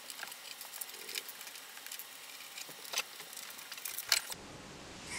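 Small screws and fingers clicking and tapping on a wooden tabletop, light scattered clicks with two louder ones about three and four seconds in, while the bottom cover screws of a 3D printer are taken out.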